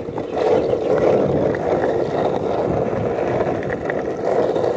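Longboard wheels rolling steadily over asphalt.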